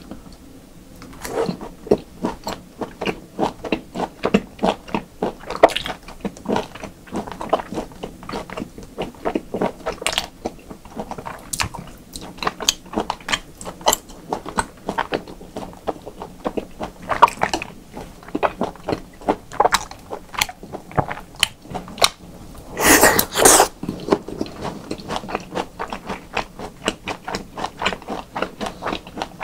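Close-miked chewing of raw beef and yukhoe: steady wet mouth clicks and smacks, with a louder, noisy burst lasting about a second roughly three-quarters of the way through.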